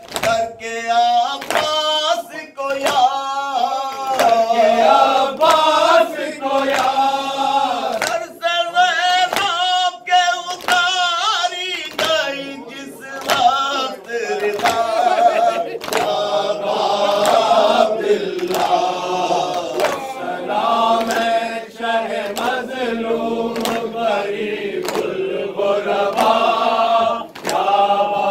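Men chanting an Urdu mourning lament (noha) together, led by a single reciter, with the chant moving in sung phrases. Sharp slaps recur at a fairly even pace through the chant, from hands beating on chests (matam) in time with the lament.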